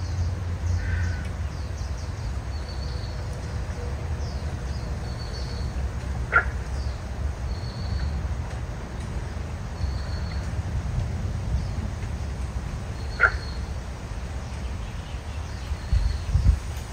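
Birds calling: a short, sharp call about every seven seconds over a short, high call repeating every second or two, against a steady low rumble, with a couple of low bumps near the end.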